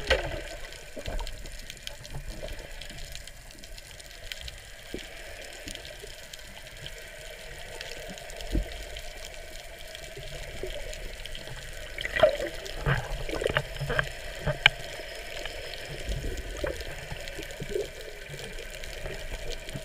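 Water noise heard through a submerged camera: a steady muffled hiss and slosh, with a run of sharp clicks and crackles from about twelve to fifteen seconds in.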